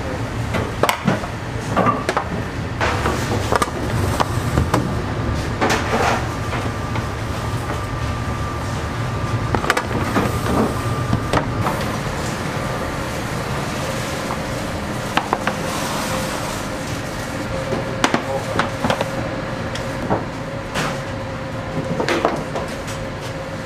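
Metal loaf tins and baking trays clanking and knocking as they are handled, over a steady hum of bakery machinery. A faint steady tone sounds for a few seconds in the middle and again near the end.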